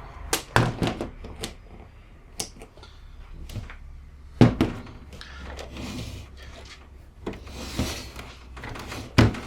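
Several sharp knocks and thunks of hard objects being handled and set down on a bench, the loudest about halfway through, with smaller clatters between.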